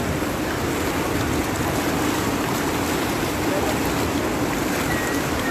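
Floodwater rushing fast along a paved lane, a steady even rush of water.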